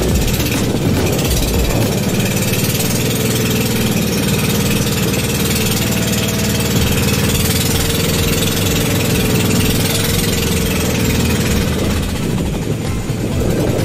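Boat engine running steadily and loudly while under way.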